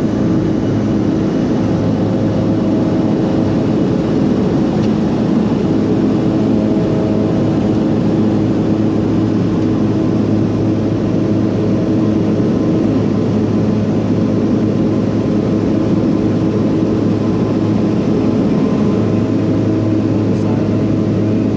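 Loud, steady engine drone with an even low hum that holds the same pitch throughout.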